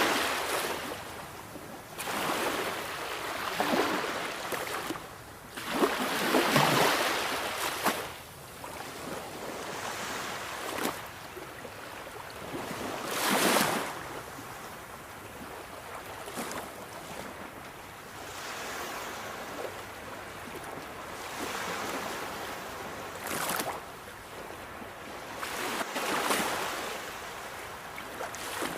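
Sea waves breaking and washing on a shore, surging up in irregular swells every few seconds and falling back between them.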